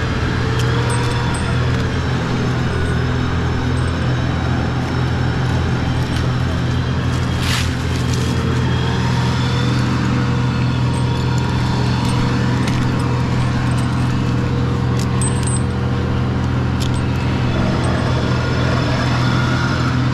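Large engine running steadily at a constant speed, a low even drone with a brief hiss about seven and a half seconds in.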